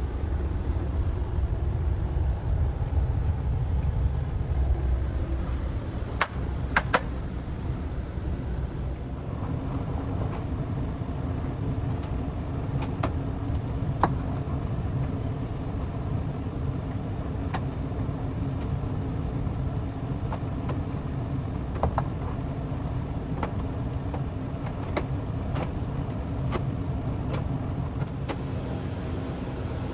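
Steady low mechanical rumble, joined by a steady hum about a third of the way through. Sharp clicks and knocks are scattered throughout, including a close pair about six seconds in.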